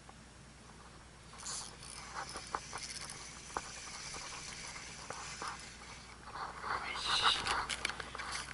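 Daiwa Certate spinning reel being cranked fast with scattered clicks as a hooked horse mackerel is reeled in. Near the end it turns into a louder burst of flapping and clatter as the fish is swung up and flaps on the concrete.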